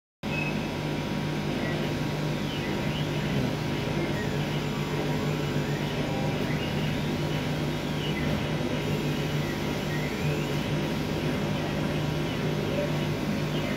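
1390 CO2 laser cutting machine running: a steady hum, with faint whines rising and falling in pitch as the cutting head moves and changes direction. It starts just after the opening.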